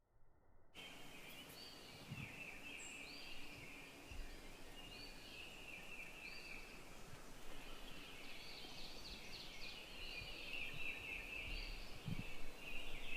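Faint forest ambience with birds calling: a short high call repeats about every second and a half over a steady high chirring.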